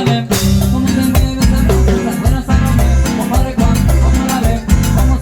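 Live tropical band music with a steady dance beat: bass, drums and percussion such as maracas playing together.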